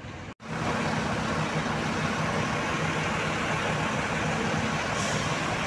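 A bus's diesel engine idling steadily at close range, a low even hum under a broad rushing noise.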